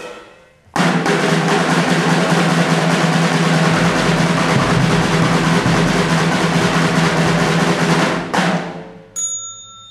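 A loud drum roll that starts abruptly about a second in and runs for about seven seconds over a steady low tone, then dies away. Near the end a bell is struck once and rings.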